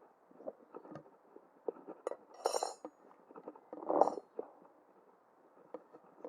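Metal tire levers clinking and knocking against a steel wheel rim while a kei truck tyre is worked on and off by hand: scattered light clicks, with a sharper clank about two and a half seconds in and the loudest knock about four seconds in.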